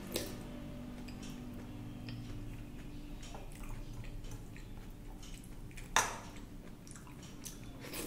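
Close-up wet chewing of rice and dal eaten by hand, with fingers squishing and mashing the rice against a stainless steel plate. A sharp click about six seconds in.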